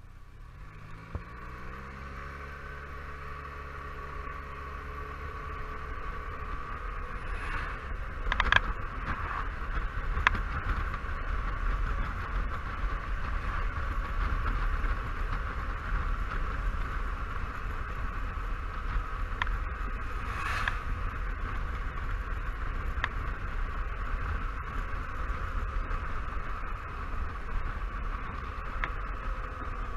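Honda Silverwing 600 maxi-scooter's parallel-twin engine pulling away and picking up speed, heard from an onboard camera. Its note rises over the first few seconds and then holds steady under a growing rush of wind and road noise. A few sharp clicks come through along the way.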